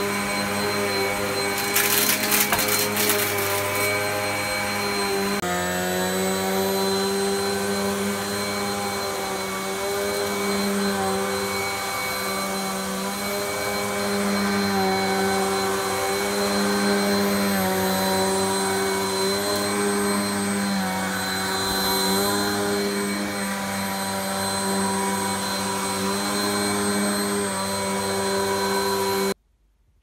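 Vax Dynamo Power Pet bagless upright vacuum cleaner running on carpet, picking up dog hair, its motor tone wavering slightly in pitch. About two seconds in there is a couple of seconds of crackling rattle, and the sound cuts off suddenly near the end.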